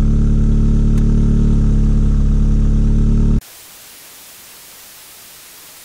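Car engine idling steadily at about 1,000 rpm. A little over halfway through it cuts off abruptly, replaced by a steady, even hiss.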